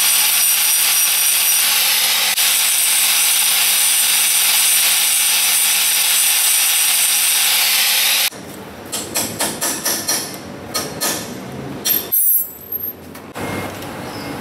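Angle grinder running steadily as it grinds the rivet pin heads off a link of a worn motorcycle drive chain, to break the chain for removal. It cuts off abruptly about eight seconds in, followed by a series of light clicks and knocks.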